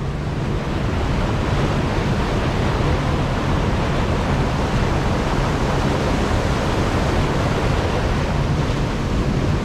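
Water pouring over a weir spillway: a steady, even rush with no breaks.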